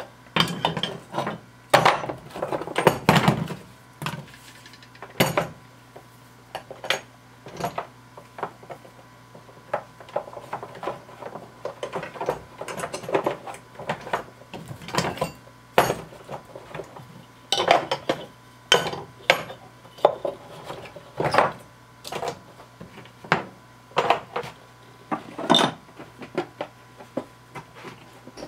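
An angle grinder, its grinding discs and a small metal wrench being packed into a hard plastic tool case: irregular clunks, clatters and rattles of metal against plastic, with the case lid being swung shut near the end.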